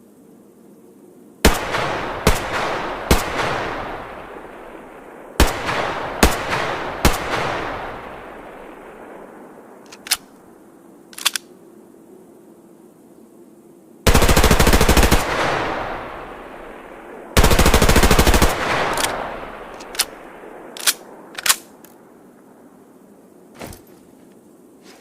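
H&K MP5 submachine gun firing: two groups of three quick shots, a few single shots, and two full-auto bursts of about a second each, with echoing tails after each.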